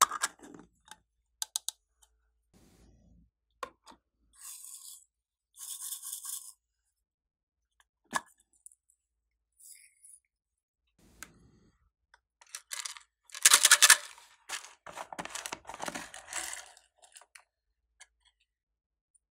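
Small plastic containers clicking open and glitter and sequins being shaken out of small plastic pots onto glossy slime in a glass tray. The result is a series of short clicks and scratchy rustles, loudest in a long burst about two-thirds of the way through.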